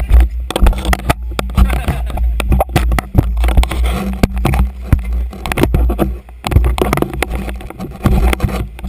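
Irregular sharp knocks and scrapes from a GoPro in its housing being bumped and handled on a boat deck, over the steady low rumble of a dive boat's engine.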